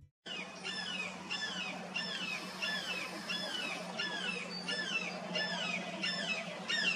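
Tufted titmouse singing its whistled 'peter, peter, peter' song: clear down-slurred notes repeated about twice a second, with a faint steady hum beneath.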